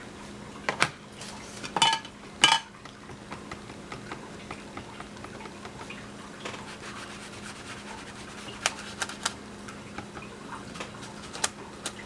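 Small plastic clicks and taps from crafting handling: a few sharp clicks in the first three seconds, then light scattered taps, as a plastic-cased pigment ink pad and a round ink blending tool are handled and ink is dabbed through a thin plastic stencil onto planner paper.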